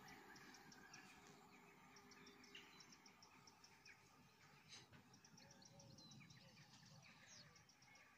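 Near silence: faint outdoor ambience with small birds chirping quietly in quick repeated notes.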